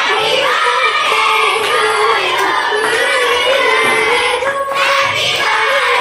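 A group of children singing a song together in chorus, with hand clapping, as a birthday cake is cut.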